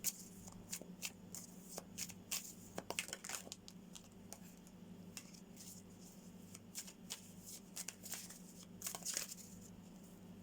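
Tarot cards being handled: scattered light clicks and rustles of the cards, over a steady low hum.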